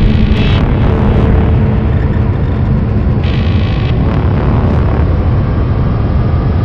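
Sci-fi film sound design: a loud, continuous deep rumble with a faint steady hum over it, and a short hissing rush near the start and again about three seconds in.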